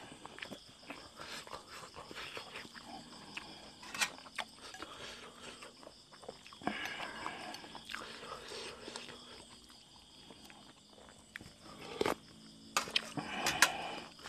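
Close-up chewing and mouth sounds of a man eating tom yum with stewed buffalo skin, with a few sharp clicks of a spoon against the ceramic bowl. Faint insects chirr steadily behind.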